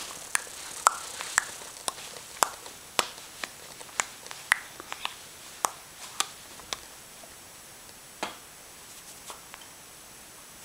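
A series of sharp, irregular clicks or snaps, about two a second at first, thinning out to a few scattered ones in the last few seconds.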